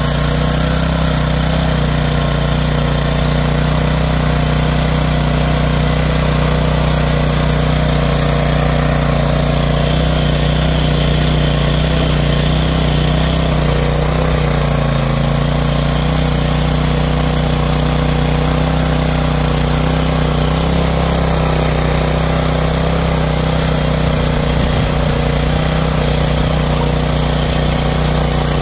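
Pubert Nano mini tiller's small petrol engine running steadily under load as its rotating tines churn through dry, stony soil.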